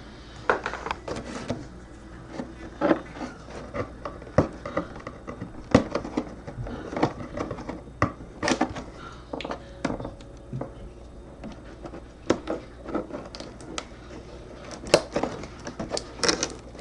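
Cardboard box and packaging being opened and handled by hand: irregular taps, knocks and scrapes, a few sharper ones near the end.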